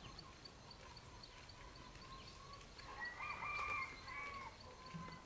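A rooster crowing in the distance, one call of about a second and a half starting about three seconds in, over a faint steady tone and a fast regular ticking.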